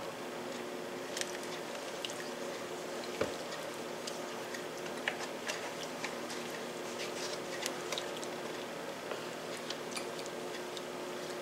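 Wooden spoon stirring cream into a simmering broth sauce in a stainless steel skillet: soft scrapes and scattered light clicks of the spoon against the pan, the firmest about three seconds in, over a steady faint hum.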